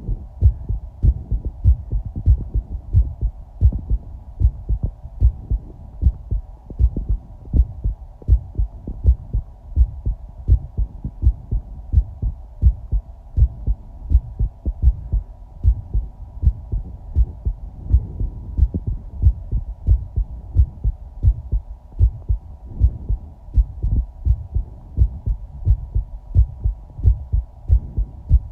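A human heartbeat recorded close to the body: a steady, regular run of low thumps, with a faint steady hum behind it.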